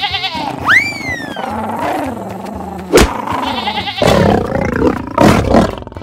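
Animal sound effects: lions roaring amid goat and sheep bleats, with a sharp hit about three seconds in.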